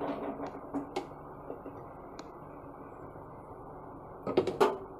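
Cooking at a gas stove while a paratha cooks on a tawa: a steady low hiss with a few light utensil clicks, then a short clatter of a spoon against a jar about four and a half seconds in.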